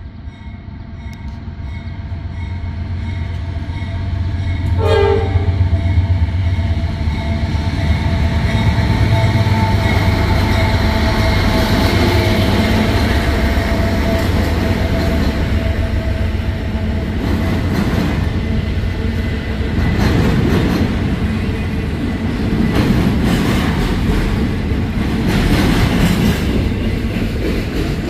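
Diesel-powered freight train approaching and sounding its air horn, growing louder over the first few seconds; the horn falls silent about halfway through, and the train passes with a heavy rumble and wheels clacking over the rails.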